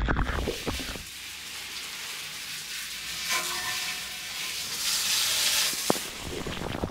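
Garden hose spraying a fine jet of water over a motorcycle: a steady hiss, with water spattering on the metal at first, and the spray louder about five seconds in.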